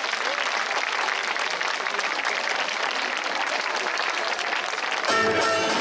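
An audience applauding steadily. About five seconds in, folk dance music starts suddenly.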